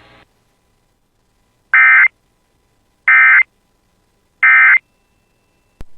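Emergency Alert System SAME data tones: three short bursts of warbling digital code, a little over a second apart. This is the end-of-message signal that closes an EAS alert.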